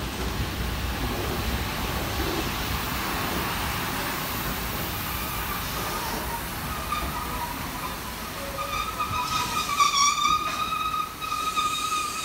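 Standing DR class 41 steam locomotive hissing steam. About seven seconds in, a steady high-pitched tone sounds over the hiss and is loudest about three seconds later.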